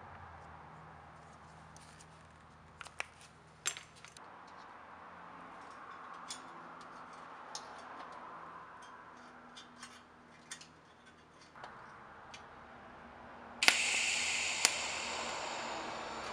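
Small metal pieces clicking and clinking on a steel workbench, then a TIG welding arc strikes about three quarters of the way through and runs as a steady loud hiss.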